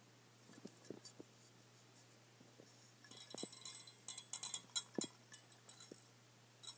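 Small loose pieces of glass rattling and clinking inside the outer glass envelope of a Brinks 175-watt mercury vapor bulb as it is turned over in the hand: a few faint knocks, then from about halfway through a quick run of tinkling clinks. The rattle is the sign of broken glass loose inside the bulb.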